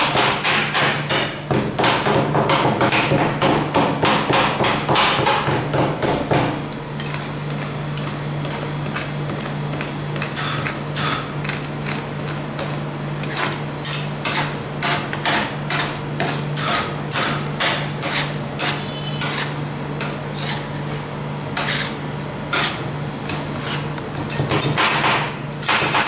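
Metal spatulas chopping and scraping ice cream mix on a steel cold plate, clacking quickly against the metal for about the first six seconds, then in sparser taps and scrapes. A steady low hum runs underneath.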